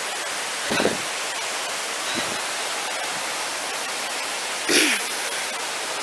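Steady rushing noise of running water from a stream beside the path, with two brief louder sounds, about a second in and again near five seconds.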